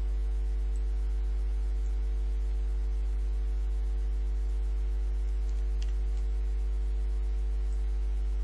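Steady electrical mains hum, a low buzz with evenly spaced overtones, picked up by the recording. One faint click about six seconds in.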